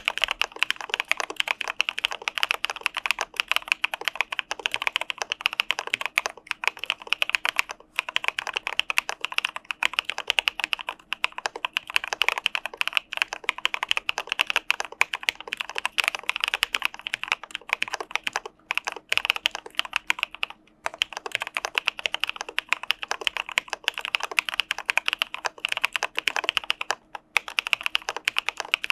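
Fast, continuous typing on an Arisu Alice-layout mechanical keyboard with CPSD linear switches. The keystrokes come in a dense stream, broken by a few short pauses.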